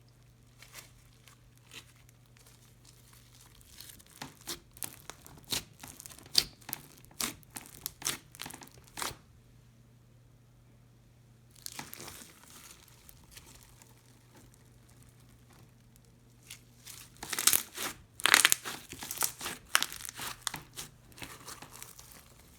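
Crunchy slime full of foam beads and seed beads crackling and popping as it is squeezed and pressed by hand. It comes in bursts of rapid crackles with pauses between, and is loudest and densest near the end.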